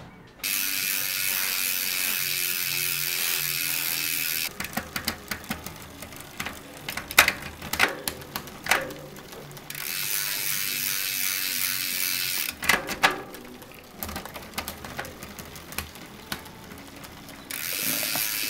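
Mountain bike drivetrain worked by hand in a stand: the rear hub's freewheel ratchet buzzes steadily in three spells as the wheel coasts, and between them come chain and derailleur clicks as the gears are shifted.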